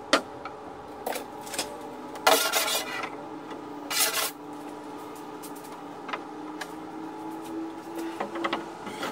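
A straightedge and steel rule handled against the plywood centerboard trunk: a string of taps and knocks, with two short scrapes a little after two seconds and at about four seconds in, over a faint steady hum.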